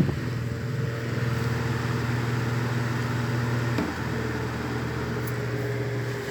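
1970 Eletromar Westinghouse 95-watt table fan running steadily: an even motor hum with the rush of air from the blades.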